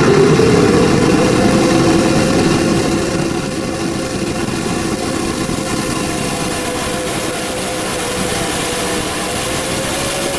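Engine of a modified pulling pickup truck running hard under load as it drags a weight sled down the track. Its pitch climbs slowly near the end.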